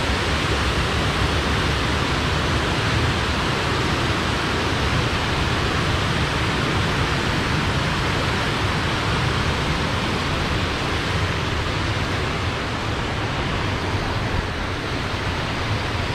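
Steady rush of water pouring over a low weir, loud and unbroken, easing slightly near the end.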